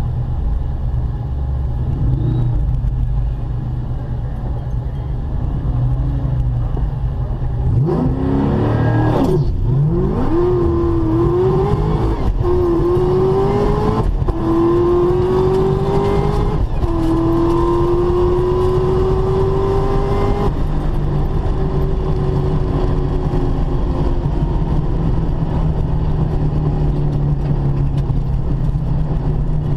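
Whipple-supercharged 2004 Mustang Cobra V8 launching and accelerating hard down the drag strip. Its note dips right after launch, where the car bogged hard, then climbs, dropping back at each of about four gear shifts before fading away. A steady low rumble lies under it throughout.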